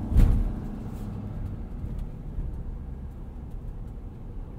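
The 6.7-litre Power Stroke turbo-diesel V8 of a 2017 Ford F-250 Super Duty, heard from inside the cab, running with a steady low drone while the truck moves slowly. There is a single thump about a quarter of a second in.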